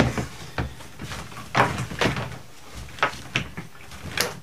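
Rummaging for a guitar cable: a series of irregular knocks and clicks as objects are moved around and handled, the loudest about a second and a half in.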